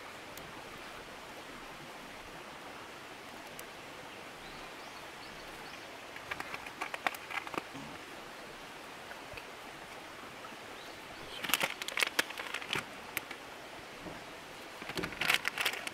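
Steady outdoor ambience with a soft hiss, broken three times by short bursts of small crackling clicks and rustles as toppings are sprinkled by hand over a bowl of food in a metal cup.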